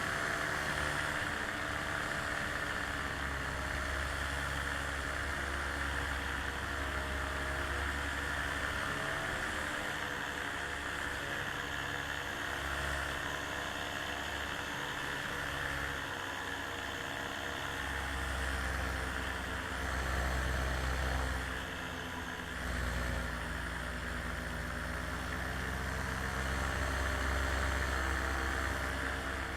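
Aircraft engine running steadily in flight, its pitch wavering slightly, with a hiss over it and wind rumbling unevenly on the microphone.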